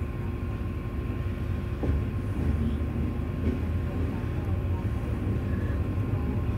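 Railway carriage running: a steady low rumble with a faint steady hum over it, and a light knock about two seconds in.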